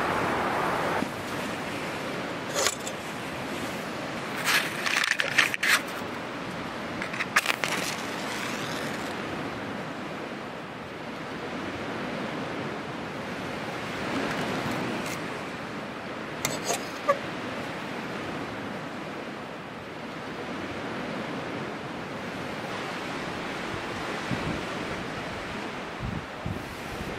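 Steady rushing of lake waves and wind at the shore, with a few short clinks and rustles of gear being handled, clustered around five to eight seconds in and again near seventeen seconds.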